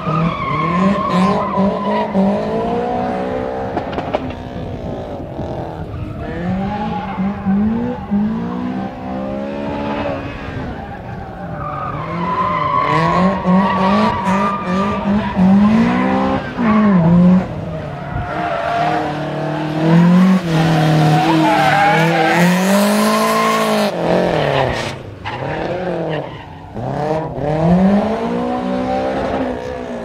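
Honda Civic hatchback's engine revving hard up and down again and again as the car slides through a course, with stretches of steady tyre squeal.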